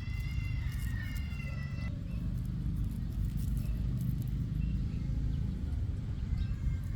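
A cat meowing: one drawn-out meow over the first two seconds and a short one near the end, over a steady low rumble.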